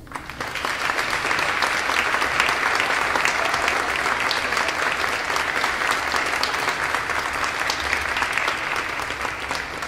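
Audience applauding: dense clapping that swells up about half a second in, holds steady, and tapers off near the end.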